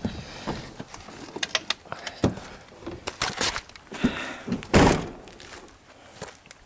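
Vehicle doors being opened and shut with several thunks and clicks, the loudest about five seconds in, as the occupants climb out of the off-road vehicle.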